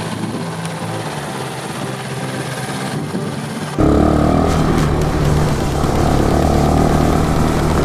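Background music, then about four seconds in a sudden switch to the Bashan 250 quad's engine running steadily and loud as it drives at speed over grass.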